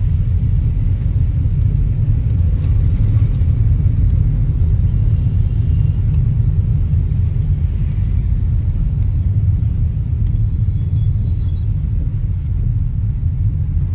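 Steady low rumble of a car driving slowly on a wet road, heard from inside the cabin: engine and tyre noise.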